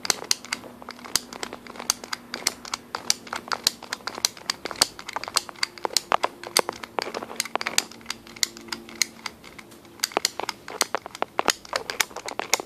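Handling noise close to the microphone: rapid, irregular clicks and crinkling crackles, with a faint steady hum underneath.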